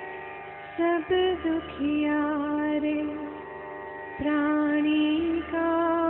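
Background music: a melody of long held notes that slide from one pitch to the next, over steady lower tones.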